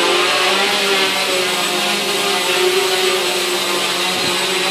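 Four Turnigy 2215L 900kV brushless motors and propellers of an SK450 dead-cat quadcopter in a hover: a steady buzzing whine made of several tones, the pitch wavering slightly as the motor speeds adjust.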